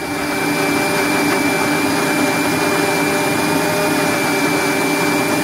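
Electric mixer grinder (mixie) running at a steady speed, grinding tomatoes, herbs and spices into a purée, with a constant high motor whine over the grinding noise.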